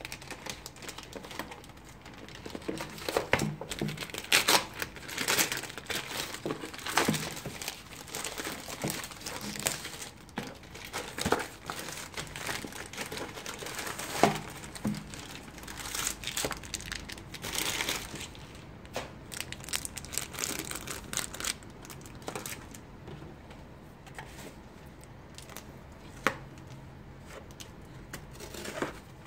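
A plastic courier satchel being torn open and crumpled by hand: irregular crinkling and ripping of the plastic. It grows sparser and quieter over the last several seconds as the cardboard box from inside is handled.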